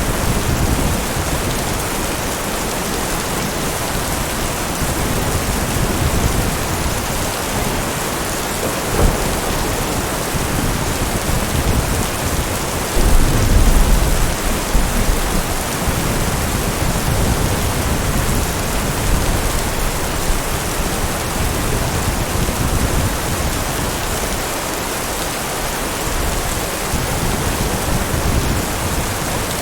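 Steady heavy rain, with a rumble of thunder about halfway through and a sharp crack a few seconds before it.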